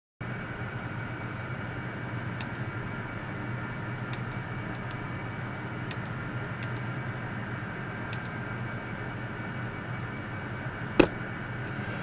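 Steady whirr of computer and room fans, with a handful of light mouse-button clicks through the middle and one louder sharp click about a second before the end.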